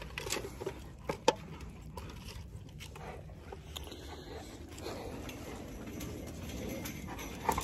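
Footsteps crunching through dry fallen leaves, a faint steady rustle with scattered small clicks.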